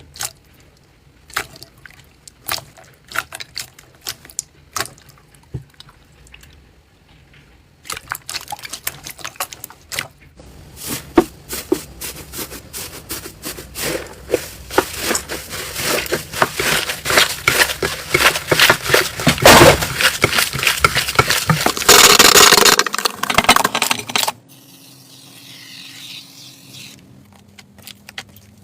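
Slime being pressed and squeezed by hand, popping and crackling. Scattered single pops at first, then about eight seconds in a dense run of crackles builds louder for some sixteen seconds and stops abruptly, leaving quieter handling.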